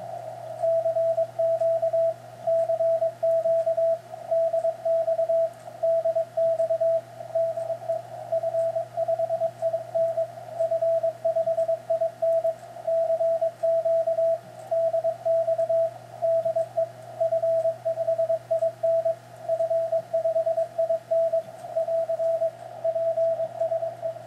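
Morse code (CW) on the 40-metre band from a ham radio transceiver: a single steady tone keyed on and off in dots and dashes at an even sending speed.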